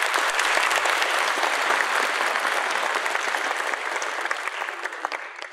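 Large audience in a hall applauding steadily after a speech, tapering off near the end.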